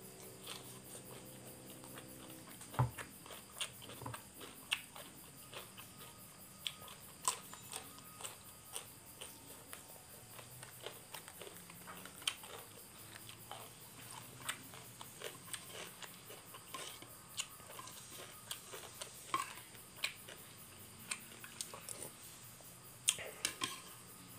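A person biting into and chewing raw cucumber and other food, close up: irregular crisp crunches and wet mouth clicks.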